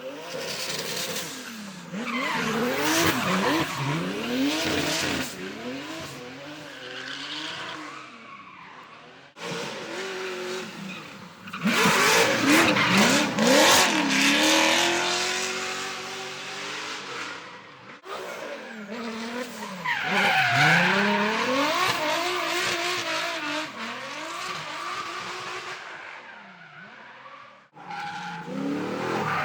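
Drift cars sliding past under power: engines revving up and down as the drivers work the throttle, with loud tyre screech. It comes as several separate passes, cut off sharply one after another.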